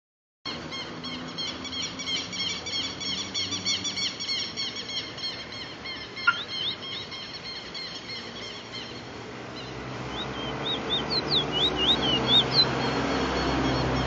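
A caged songbird singing its roll: a fast run of repeated notes, about four or five a second, for the first few seconds, then a handful of sharp upward-sliding notes near the end. A single sharp click comes about six seconds in, and a low rumble builds in the last few seconds.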